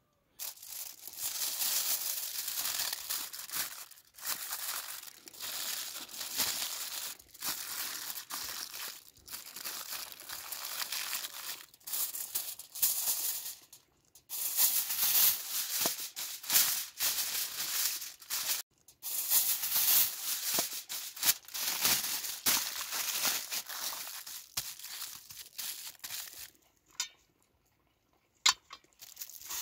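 Aluminium foil being crinkled and folded by hand around a piece of meat, loud crackling in long stretches with short pauses, dying down to a few sharp crackles near the end.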